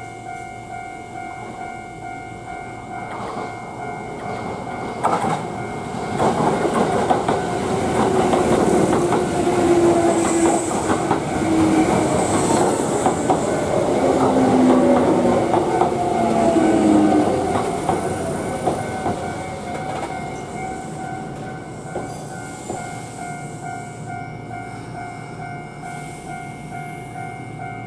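Japanese level-crossing warning signal ringing in a steady repeating pattern while a Kintetsu electric train passes over the crossing. The train's rumble and wheel clatter over the rail joints swell from about five seconds in, are loudest for roughly ten seconds, then fade, leaving the crossing bell ringing on.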